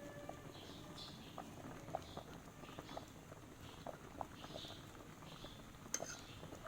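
Faint bird chirps repeating every half second or so, with scattered light clicks.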